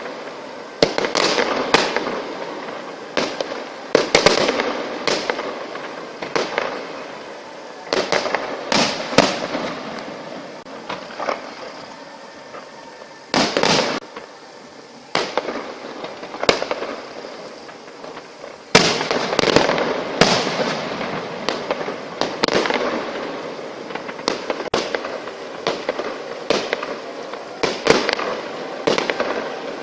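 Aerial fireworks going off: a rapid, irregular series of sharp bangs and booms in clusters, with crackling and fizzing from the bursting shells between them.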